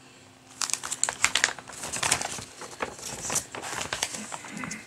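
Stiff plastic cover film and a paper-backed diamond painting canvas crinkling and crackling as they are handled and turned over. The crinkling starts about half a second in and goes on in an irregular run of crackles.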